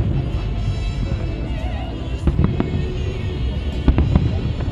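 Fireworks bursting overhead, with a pair of sharp bangs about two seconds in and another pair near the end, over music and a low rumble.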